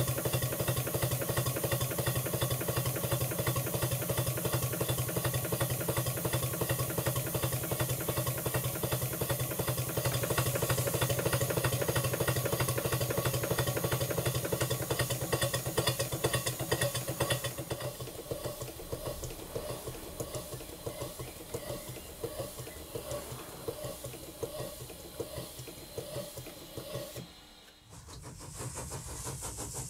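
Stuart 5A model steam engine running on compressed air: a fast, even beat of exhaust with hiss and mechanical knocking. A little over halfway through it turns quieter and slower, and shortly before the end the sound cuts off.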